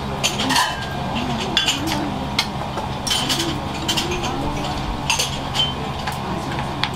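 Dishes, pans and cutlery clinking and clattering in a busy restaurant kitchen: sharp clinks every second or so over a steady low hum.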